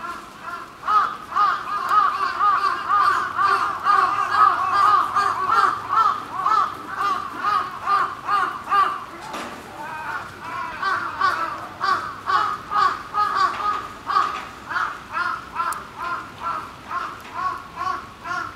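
Crows cawing over and over, a steady run of short rising-and-falling calls, about three or four a second, loud throughout.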